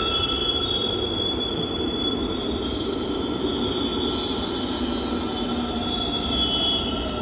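Busan Subway Line 1 train braking into a station: a steady rumble under several high whining tones from its IGBT-VVVF traction inverter, some of which drift lower near the end as the train slows.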